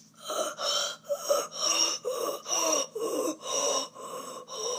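A person's voice making a rapid run of short, breathy gasps, about two a second.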